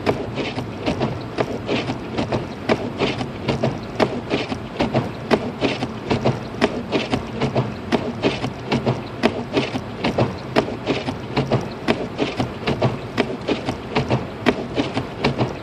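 Inside a car driving through a snowstorm: a steady low road and engine hum, with rapid, irregular clicking and ticking several times a second.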